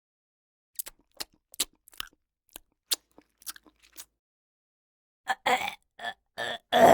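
A woman's mouth chewing something crunchy: a run of small sharp crunches and clicks, then four louder crunching bites near the end.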